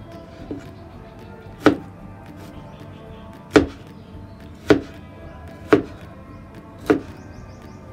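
Cleaver chopping tomatoes on a plastic cutting board: five sharp chops one to two seconds apart, each a knock of the blade on the board, with a lighter tap about half a second in.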